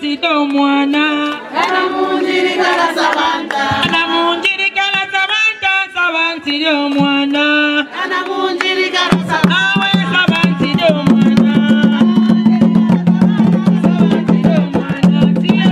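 Women singing a traditional song. About nine seconds in, fast hand drumming on tall wooden drums joins in and carries on under the voices.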